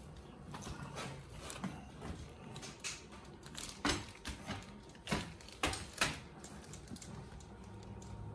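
Goat's hooves stepping and knocking on the metal grating of a goat stand: scattered light taps, then four sharper knocks over about two seconds near the middle.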